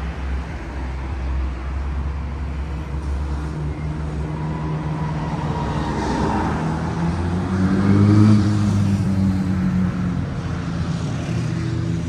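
Road traffic running alongside, with a motor vehicle's engine passing and growing loudest about eight seconds in, then fading.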